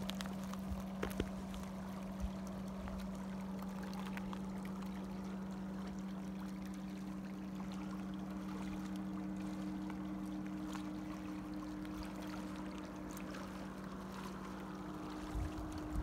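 Small stream of water rushing and splashing between boulders, with a steady low hum underneath. Wind buffets the microphone near the end.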